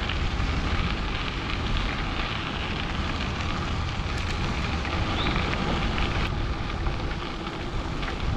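Wind buffeting the microphone over the steady crunch of bicycle tyres rolling on a crushed-stone trail at riding speed.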